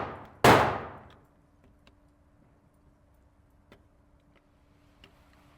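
A pistol shot about half a second in, sharp and ringing off the range walls for about a second, right after the echoing tail of another shot. Then only a faint steady hum with a few light clicks.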